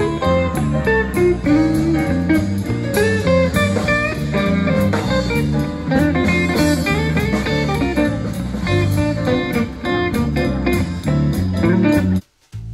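A live band playing through PA speakers, a guitar leading over bass, drums and keyboard. The music cuts off suddenly near the end.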